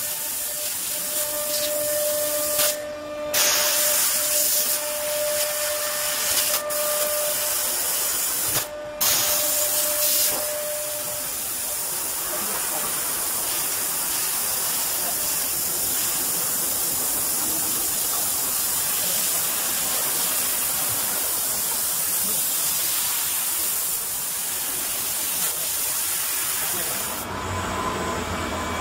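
2 kW IPG fiber laser cutting machine cutting 5 mm stainless steel plate: a loud, steady hiss of assist gas from the cutting head, with a steady whine over it for the first ten seconds or so. The hiss cuts off briefly twice, about three and nine seconds in. Near the end it stops and a lower hum remains.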